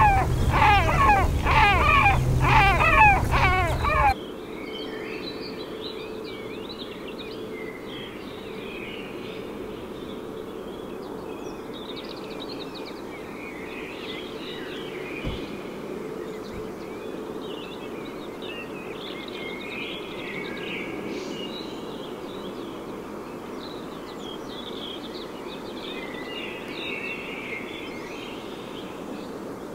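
A white-tailed eagle calls in a loud, rapid series of harsh yelping notes that stops abruptly about four seconds in. After that, small songbirds sing and chirp faintly over a steady low hum.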